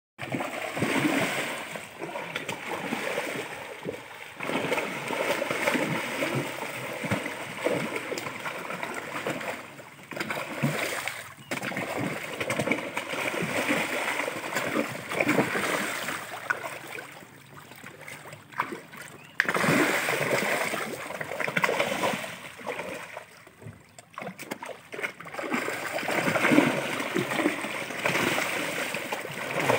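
Large fish thrashing and splashing at the water's surface as they feed, in irregular flurries of spray and slaps with a few short lulls.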